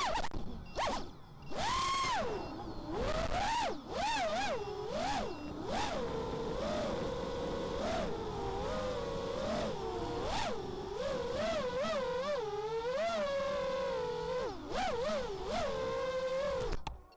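FPV quadcopter's brushless motors (ZMX 2206 2300kv) spinning three-blade props, whining in a pitch that swoops up and down with each throttle change, with rushes of wind noise. The whine stops suddenly near the end.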